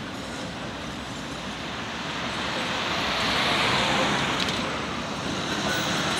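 A car passing close by on the road, its tyre and engine noise swelling to a peak about halfway through and then easing off, over general street traffic noise.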